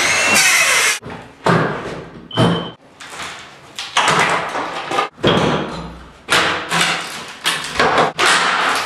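A cordless circular saw cuts briefly into a wooden door jamb for about a second at the start, then a string of loud thuds and cracks as the cut jamb is knocked and wrenched out of the door frame.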